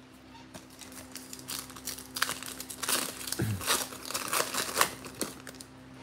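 A foil Panini Prizm football card pack being crinkled and torn open by hand: a run of crackling rustles that builds through the middle and dies away near the end.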